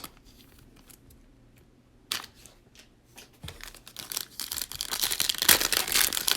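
A plastic trading card pack wrapper crinkling and tearing as it is handled and opened, with a short sharp rip about two seconds in and denser crinkling that builds toward the end.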